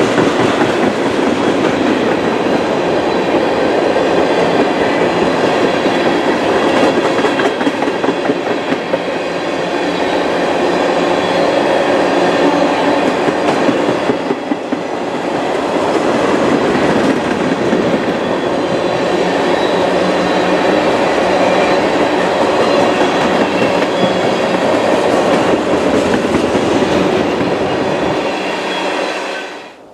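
Freight train of tank cars rolling past, a loud steady rumble of wheels on rail with clickety-clack over the rail joints. It cuts off suddenly near the end.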